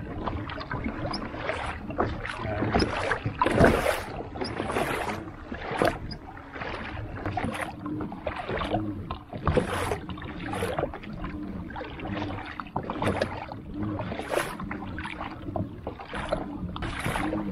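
Water splashing and lapping against the hull of a pedal-driven kayak under way, in irregular surges about every second, over a low steady drone.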